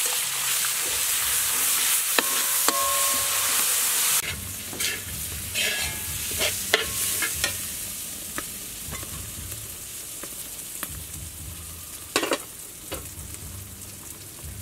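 Raw rice grains toasting in a hot wok while a metal spoon stirs them: a steady sizzling hiss for the first few seconds, then softer scraping with clicks of the spoon against the wok. A loud metal clank comes near the end.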